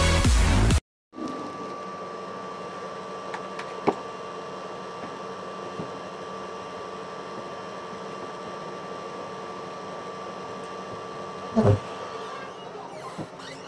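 Electronic dance music cuts off abruptly within the first second. After a brief silence comes room tone with a steady electrical hum, a sharp click about four seconds in, and a soft low thump near the end as pillows are moved on a bed.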